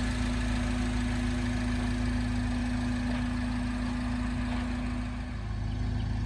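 Steady low mechanical hum with one constant droning tone, like an engine running at idle.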